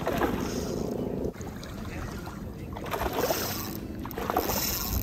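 A hooked bonefish splashing at the surface of shallow water as it is fought in, with a couple of louder splashes near the end.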